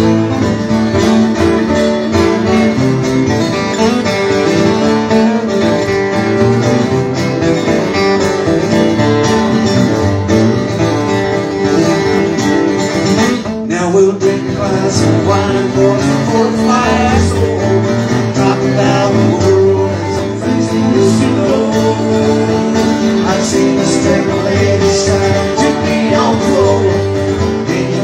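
Two acoustic guitars strummed together in a live folk/bluegrass-style song, with a man's singing voice.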